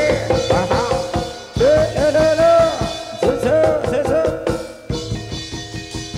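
Live jaranan gamelan music: drums beating steadily under a melody that bends up and down in pitch.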